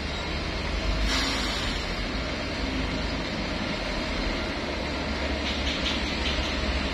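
Diesel engines of Kobelco hydraulic excavators and waiting dump trucks working at a distance: a steady low rumble, with a short hiss about a second in.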